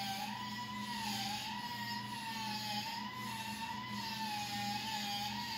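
Emergency vehicle siren wailing, its pitch wavering slowly up and down.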